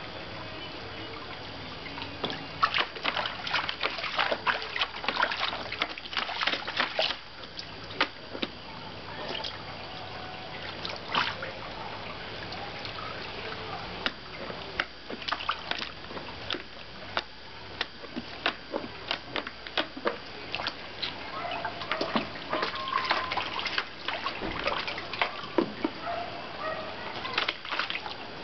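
Old English Sheepdog pawing and stepping in shallow water in a plastic paddling pool, sloshing and splashing in irregular bursts with quieter stretches between.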